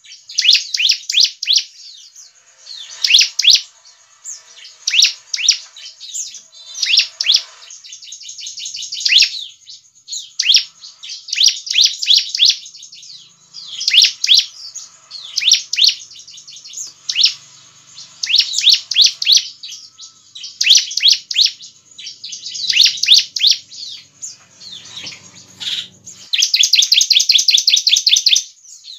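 Bar-winged prinia (ciblek) song: short phrases of rapid, high chirping notes about every two seconds, then one longer, fast, even trill near the end.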